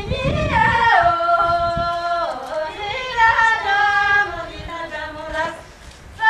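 A high female voice singing long held notes that glide from one pitch down to the next, dropping away briefly near the end.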